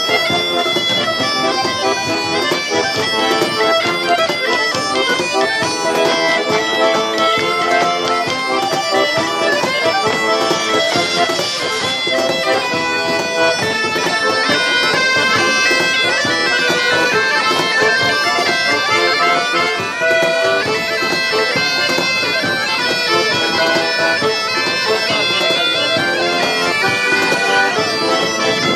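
Folk tune played on two bagpipes with a steady drone under the melody, joined by a diatonic button accordion, with a cajon slapped to keep the beat.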